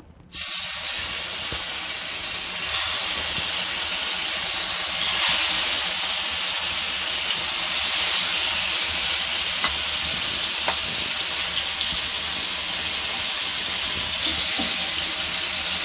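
Marinated rahu fish pieces deep-frying in hot oil: a loud, dense sizzle that starts abruptly just after the start as the pieces go into the oil. It carries on steadily, with brief swells a few seconds in.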